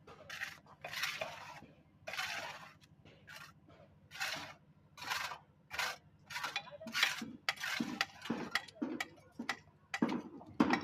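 Metal hand tools scraping and clinking against concrete in a run of uneven strokes, coming faster in the second half.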